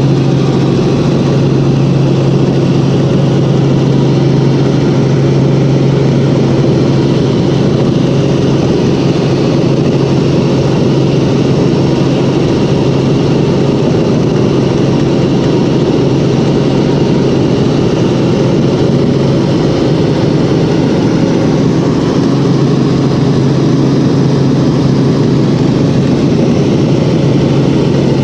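Helicopter in steady cruise heard from inside the cabin: a loud, constant drone of rotor and engine with a strong, steady low hum.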